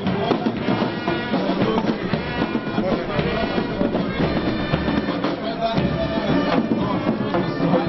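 A marching band playing a march: held wind-instrument notes over drums.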